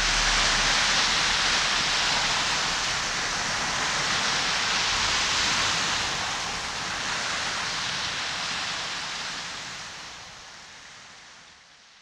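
Steady outdoor shore ambience, an even hiss like water and air at the sea's edge, fading out gradually over the last few seconds.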